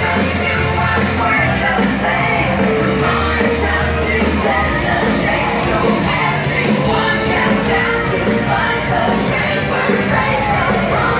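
Loud, upbeat parade music with a singing voice and a steady beat; a heavy bass note drops away about four and a half seconds in.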